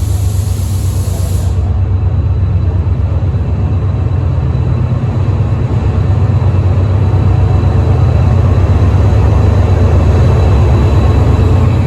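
Diesel engine of a Class 68 locomotive running with a deep steady drone that grows gradually louder. A short burst of hissing comes in the first second and a half.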